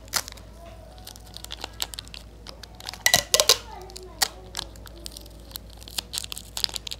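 Plastic snack wrapper crinkling and sticky tape being pulled and torn from a tape dispenser: a scatter of sharp crackles and clicks, loudest about three seconds in.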